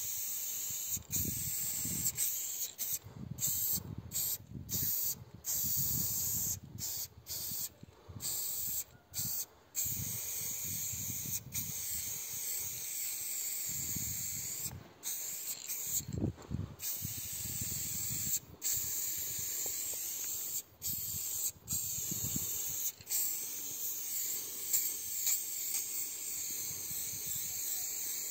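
Aerosol spray paint cans hissing in repeated bursts, broken by many short pauses.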